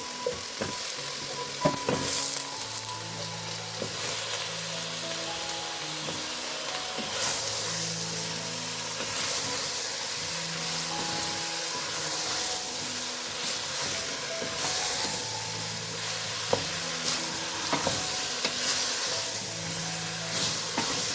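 Food sizzling as it fries in a pan, with a few sharp knocks of a utensil against the pot, under soft background music with slow held notes.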